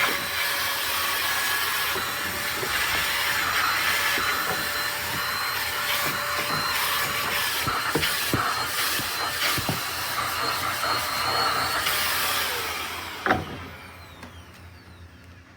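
Intercleaner 400 W corded stick vacuum running steadily with an attachment fitted, with scattered clicks and knocks. About 13 seconds in it is switched off with a click, and the motor winds down with a falling pitch.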